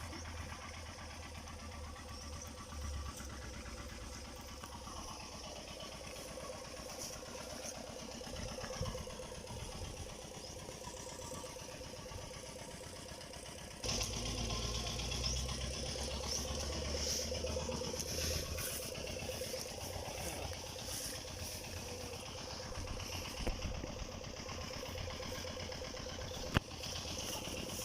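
Kubota DC105X combine harvester's diesel engine running steadily, smooth even after more than 1600 hours. It gets suddenly louder about halfway through and stays that way.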